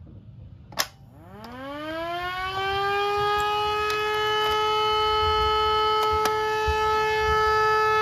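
A small 24-volt electromechanical rotor siren. A sharp click comes about a second in, then the siren winds up in a rising wail that levels off into a steady tone after a couple of seconds and holds.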